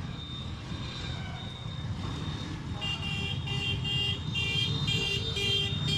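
Motorcycle engine and road noise on a ride. From about three seconds in, a loud electronic beep repeats about twice a second.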